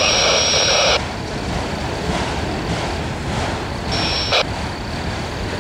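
Freight train of autorack cars rolling slowly past, a steady rumble and clatter of wheels on rail. A hiss confined to a narrow band cuts off sharply about a second in and returns as a short burst a little after four seconds.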